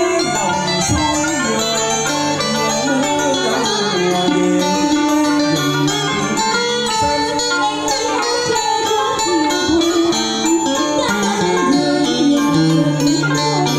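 Vietnamese cải lương instrumental accompaniment: a Roland E-A7 arranger keyboard and an electric guitar playing a melody together over a sustained bass line.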